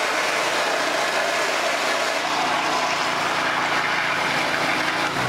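Pressure-washer-driven mud sucker at work: a steady, loud rush of high-pressure water and of water being drawn up the suction hose as it empties a tray of 25 litres. The rush stops near the end.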